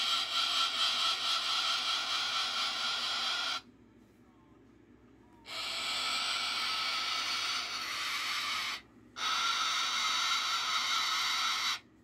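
Moluccan cockatoo making a harsh, long hissing static, three drawn-out bursts with short breaks between them: his imitation of a dial-up modem connecting.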